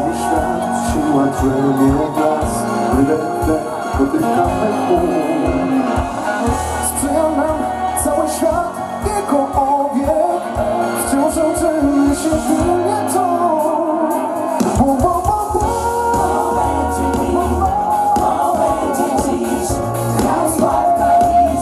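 Live pop band playing through a PA with several voices singing together over electric guitar and drums. The bass and drums drop out for about a second around the middle, then come back in.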